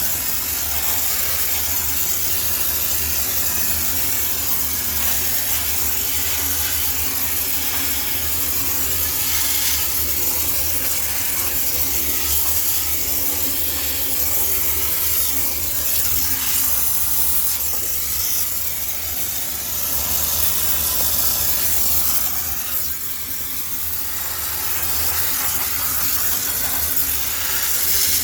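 High-pressure steam cleaner jetting steam to sterilise a laundromat washing machine: a steady, loud hiss over a low machine hum, easing briefly about two-thirds of the way through.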